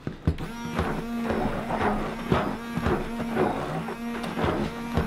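Stick (immersion) blender running in thick hot-process soap paste in a plastic container: a steady motor hum with irregular churning and slapping as the blade head works through the paste. The motor switches on just after the start.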